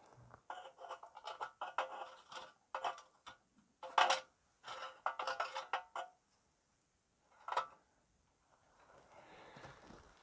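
Thin dry twigs snapping and scraping against a metal can hobo stove as they are poked into a newly lit fire, with quick clinks and cracks of wood on metal for about six seconds, the loudest about four seconds in. One more sharp crack follows, then a soft rustle near the end.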